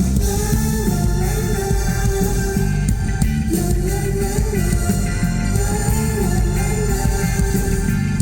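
Live rock band playing, with guitars and a held melody line that returns in phrases about every two seconds.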